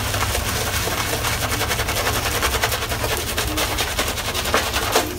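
Boar-bristle shaving brush face-lathering shaving soap: a fast, dense wet crackling of bristles scrubbing lather on the skin.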